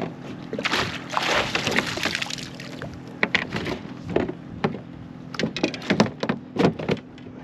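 Water splashing as a hooked fish is scooped into a landing net beside a kayak, followed by a run of sharp knocks and clatter on the kayak.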